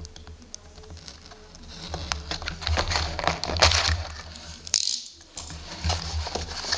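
Plastic shrink wrap being slit and stripped off a cardboard trading-card box, rustling and crinkling with clicks of handling, loudest in the middle. Near the end the cardboard box lid is lifted open.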